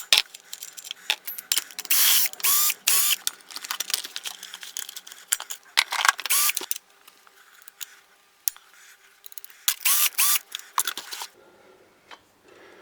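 Tools and small metal parts clicking and rattling as the engine cover and muffler are taken off a DWT petrol brush cutter: three clusters of short clicking, clinking bursts, about two, six and ten seconds in, going quieter near the end.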